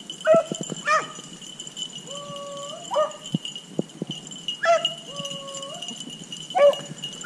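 Beagles baying on a rabbit's trail: sharp, short barks every second or two, with long drawn-out howls between them.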